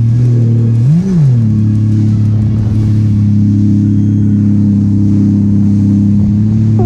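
Sea-Doo RXP-X 300 personal watercraft engine idling steadily, with one quick blip of the throttle about a second in that rises and falls in pitch.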